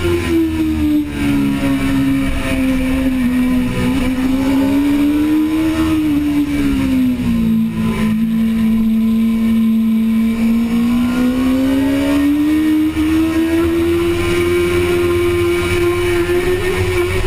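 Onboard sound of a 2005 Suzuki GSX-R600's inline-four engine at racing speed. Its note drops over the first few seconds, stays low through the middle, then climbs steadily as the bike drives out of the corner, and holds high near the end.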